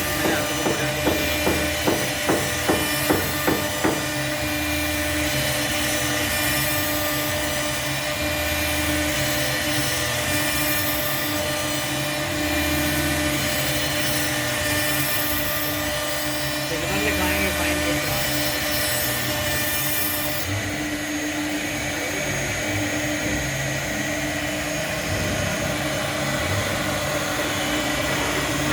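CNC router spindle running with a steady whine while the bit cuts into wood. A rapid run of regular pulses comes in the first few seconds, and the high-pitched cutting hiss drops away about two-thirds of the way through.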